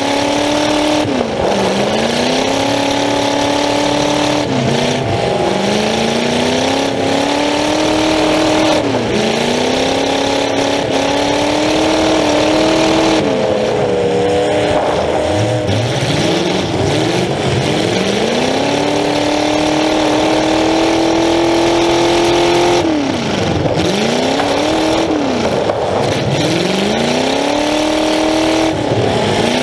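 Demolition derby car's engine, heard from inside the car, revving hard. Its pitch climbs and drops sharply again and again as the throttle is opened and shut, with one longer climb through the middle.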